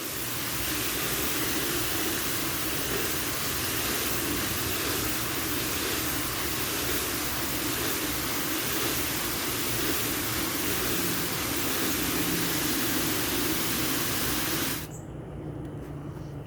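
Water running from a hose into a plastic tub of soapy, bleachy water, a steady rushing hiss that cuts off suddenly about fifteen seconds in as the water is shut off.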